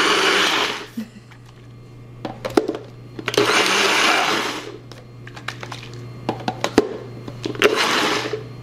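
NutriBullet personal blender pulsed in short bursts, its blades chopping tomato, onion, chile and cilantro into a fresh salsa: a burst stops just under a second in, another runs for about a second and a half in the middle, and a short one comes near the end, with light clicks and knocks between. The quick pulses keep the salsa chunky rather than pureed.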